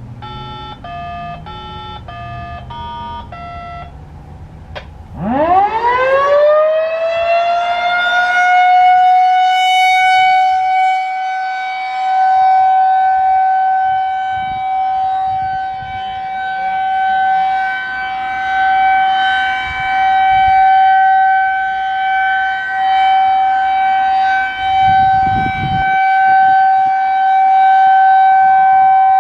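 A quick run of about seven short electronic activation tones. About five seconds in, a Federal Signal 2001-SRNB rotating siren winds up with a rising whine and holds one steady alert tone, swelling and fading as the siren head rotates.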